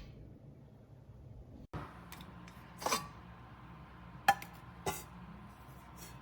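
Stainless steel tea kettle being handled: four sharp metallic clanks and clicks spread over a few seconds, over a low steady hum.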